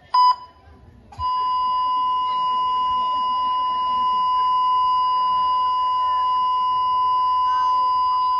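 Heart-monitor sound effect: a short high beep, then, about a second in, one steady unbroken tone at the same pitch. It is the flatline that signals the patient's heart has stopped.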